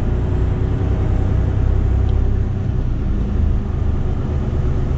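Mercedes-Benz Actros truck cab interior while driving slowly: a steady low drone of the diesel engine and road noise.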